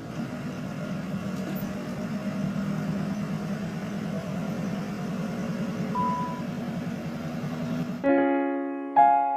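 A steady low rumble that cuts off abruptly about eight seconds in, when piano music begins with notes struck about once a second.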